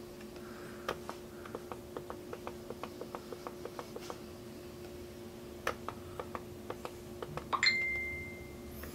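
Faint clicks from a laptop, several a second, as trail-camera pictures are flipped through, over a steady low hum. Near the end a message notification chime sounds, a short ping followed by a ringing tone that fades out over about a second.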